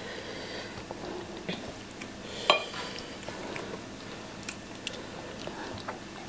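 Two people chewing and biting into toast and baked beans, with metal forks clicking against ceramic plates now and then. The loudest is one sharp, ringing clink about two and a half seconds in.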